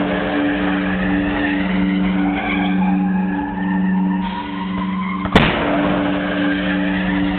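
Hail cannon going off once about five seconds in, a single sharp, loud blast. A steady pulsing hum runs between shots.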